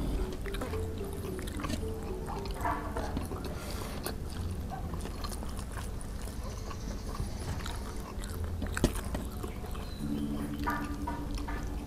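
Two people eating a meal: quiet chewing, with a few light clinks of a spoon on the plates, over soft background music.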